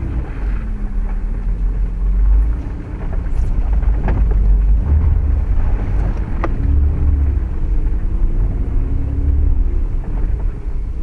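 Off-road SUV engine running under load in low gear through mud, its pitch rising and falling as the throttle is worked, heard from inside the cabin as a heavy low rumble. Two sharp knocks sound about four and six and a half seconds in.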